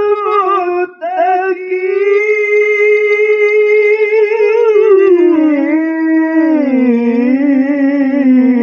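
A man's voice chanting Qur'an recitation in the melodic qari style into a microphone: after a short break about a second in, one long note is held for several seconds, then the melody winds slowly down to a lower pitch.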